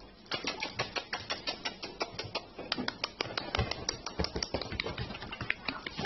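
Dogs' and puppies' claws clicking on a hard smooth floor as they walk and scamper about, in rapid irregular clicks, several a second.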